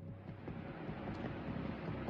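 Steady outdoor background noise: a low rumble and hiss with scattered soft knocks.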